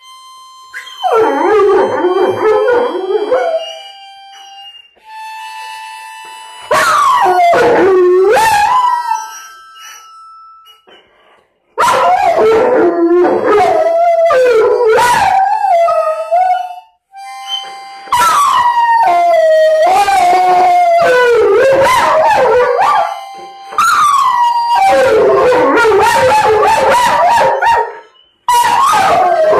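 Huntaway dog howling in about six long bouts, its pitch wavering and sliding up and down. Steady held notes sound in the gaps between the howls.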